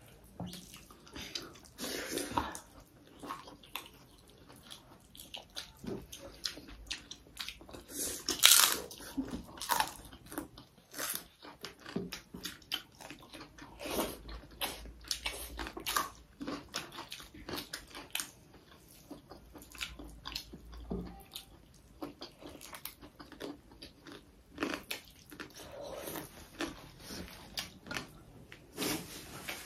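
Chewing and biting into pork and buffalo meat curry with rice, heard as a string of irregular crunches and mouth smacks.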